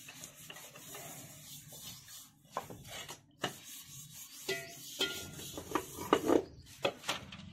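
Footsteps scuffing on brick paving, with a few light knocks as a plastic bowl is handled; the scuffs and knocks come thicker in the second half.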